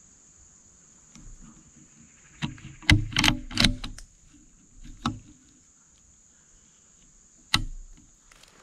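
Insects droning with a steady high buzz, while close handling noise, sharp knocks and rubs on the rifle-mounted camera, comes in a cluster about three seconds in, again about five seconds in and once more near the end.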